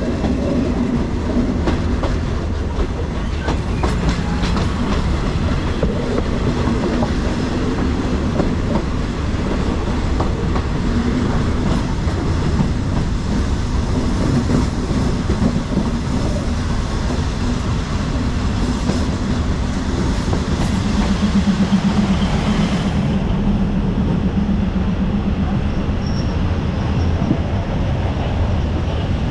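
Passenger train running along the track: a steady rumble of wheels on rails with the clickety-clack of rail joints. A low hum swells for a few seconds about two-thirds of the way through.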